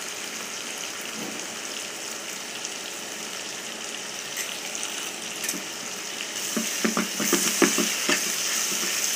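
Chopped vegetables sizzling as they fry in oil in a pan. In the second half a spoon knocks and scrapes against the pan as they are stirred.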